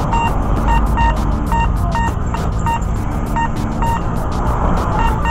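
Electric scooter's electronic horn beeping in short, same-pitched beeps at uneven intervals, singles and quick pairs, over steady wind and road rumble from the moving ride.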